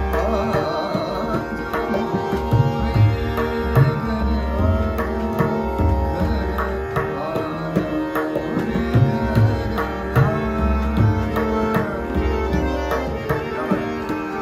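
Hindustani classical music: a harmonium accompanies a male singer's ornamented vocal line over a steady drone, with tabla strokes keeping a steady beat.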